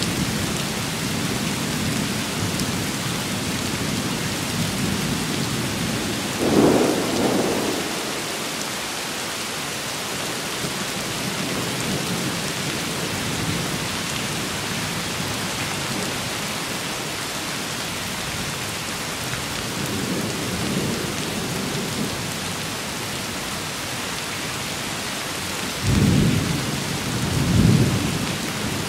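Steady rain falling in a thunderstorm, with a short rumble of thunder about six seconds in and two more close together near the end.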